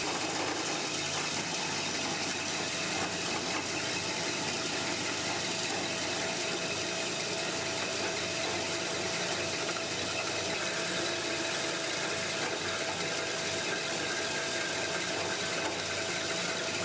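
Horizontal bandsaw running steadily, its blade cutting through metal stock as the hydraulically controlled bow descends, with coolant flowing onto the blade.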